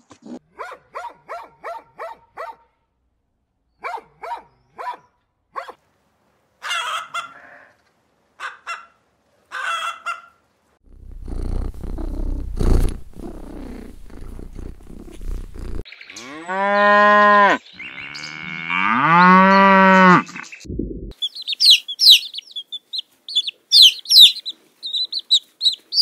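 A run of animal sounds: rapid clicking chews from rabbits eating a green stem, two long drawn-out animal calls that rise and fall in pitch midway, then high quick chirps near the end.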